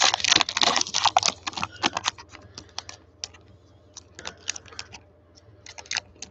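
Wrapper of a Panini Prizm bonus card pack crinkling and crackling as gloved hands tear it open. The crinkling is dense for about the first two seconds, then turns to sparser crackles, with a short lull before a few more near the end.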